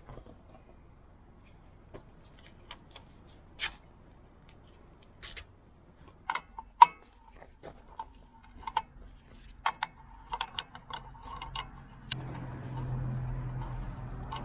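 A series of sharp metallic clinks and knocks from hand tools and steel parts being handled, several ringing briefly; about twelve seconds in a steady low hum starts up and keeps going.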